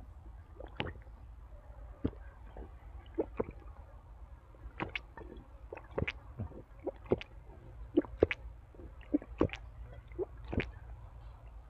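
A person eating: wet chewing and lip smacks, a series of short, irregularly spaced smacks and clicks.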